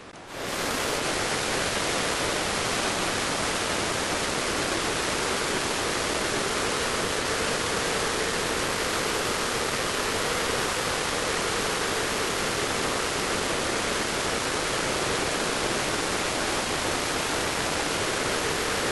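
Steady rush of wind noise on the microphone of a video camera mounted on an ultralight trike's wingtip in flight, setting in about half a second in, with a faint hum under it.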